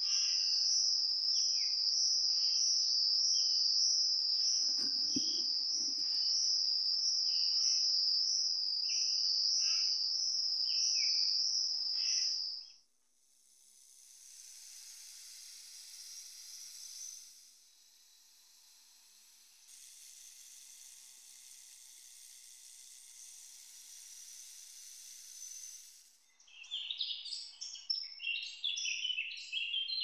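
Layered rainforest sounds. First a loud, steady, high-pitched insect trill with short bird chirps over it and a brief low thump about five seconds in. This gives way to a softer hissing insect chorus, and near the end to rapid high bird twittering.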